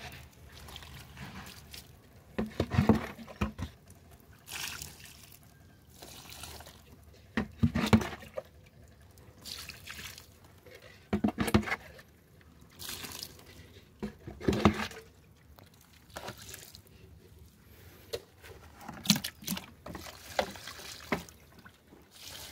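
Root-stimulant solution poured from a cup into potted grafted mai vàng plants, splashing and trickling into bone-dry potting medium that soaks it up at once. It comes as a series of short pours with brief gaps between them.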